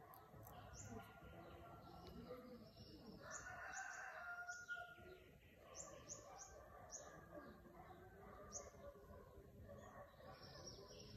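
Faint birds chirping, with short high chirps scattered throughout and a longer, louder call about three to five seconds in.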